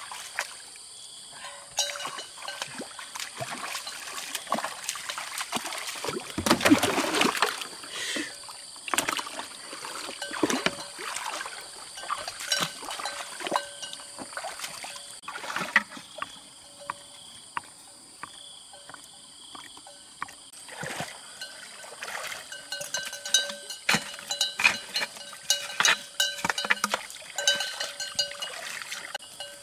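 Water splashing and sloshing in a shallow muddy stream as a person wades, bails with a plastic basin and digs at the bank. Short splashes and knocks come throughout, with a longer, louder splash about six to seven seconds in.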